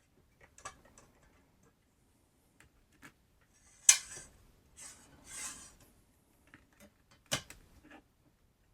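Scattered small clicks and taps of tools and small parts being handled on a workbench, with two sharper knocks about four and seven seconds in and a brief rustle between them.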